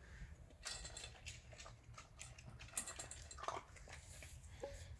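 An animal crunching and chewing dry dog-food kibble: a run of irregular crunches starting about half a second in.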